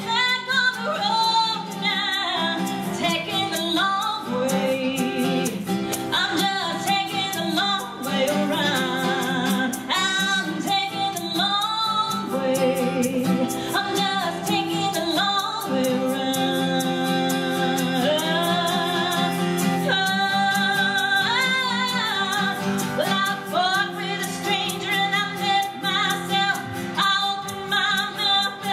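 Live country song: a woman singing sustained, wavering notes over guitar accompaniment.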